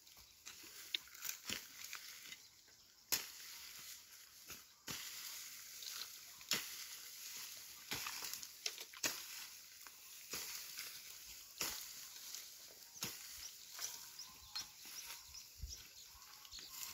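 Hand hoe chopping into dry, cleared soil: irregular sharp strikes about every one to two seconds, with a faint hiss between them.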